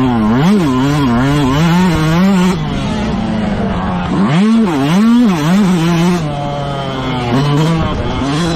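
Motocross bike engine racing under hard riding, the revs climbing and falling over and over as the throttle is worked, with a brief drop about four seconds in and a sharp climb right after.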